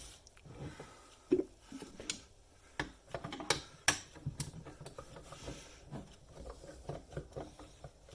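Scattered clicks and knocks of the Tefal Le Saucier appliance and tools being handled as it is opened up, with several sharp knocks in the first half.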